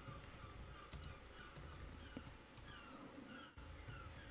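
Faint computer-keyboard typing, irregular light keystrokes as a password is entered, with faint short chirps behind.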